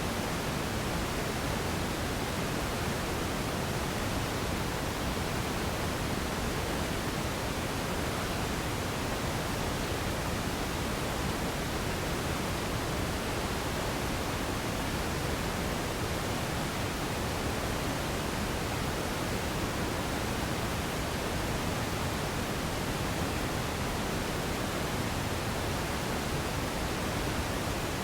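Radio static: a steady, even hiss of noise with no tones, voices or breaks.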